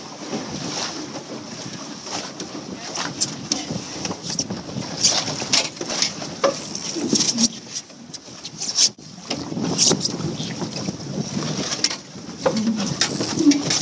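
Wind and water noise aboard a Tasar sailing dinghy while it tacks, with rustling and knocks close to the microphone as the crew shift across the boat. The sound dips out briefly about two-thirds of the way through.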